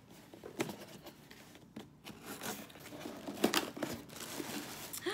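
Cardboard shipping package being opened: tearing and crinkling of the packaging in short bursts, the sharpest rip about three and a half seconds in.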